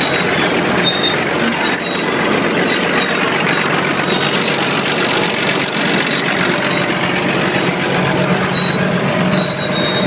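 1951 Caterpillar high-output D8 dozer's diesel engine running hard under heavy load, with a valve-train noise that the owner says comes only when working, not when running without load.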